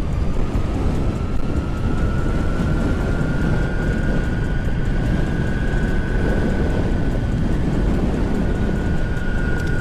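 Meepo Hurricane electric skateboard motors, driven by an LY-FOC ESC, whining under full throttle. The pitch keeps rising as the board accelerates, then levels off as it nears top speed, over a steady low rumble of wind and road noise.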